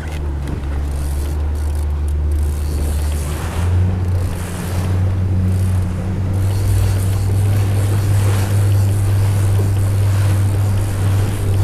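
Motorboat engine running under way, its note stepping up in pitch about three and a half seconds in, with water rushing and splashing along the hull.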